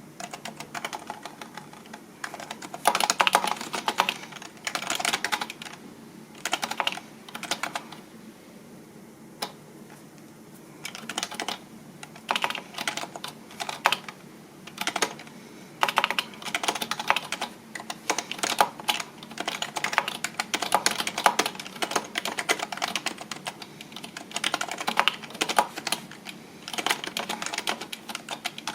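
Typing on a computer keyboard: quick runs of key clicks in bursts of a few seconds, with short pauses between them.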